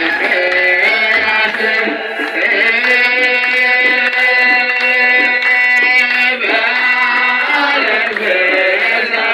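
Ethiopian Orthodox clergy chanting mahlet together in many voices, long held and bending notes, over a regular beat.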